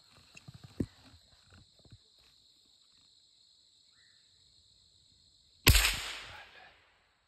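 A single close gunshot about six seconds in: a sharp crack whose echo dies away over about a second. Before it, a few faint clicks and knocks of the gun being handled.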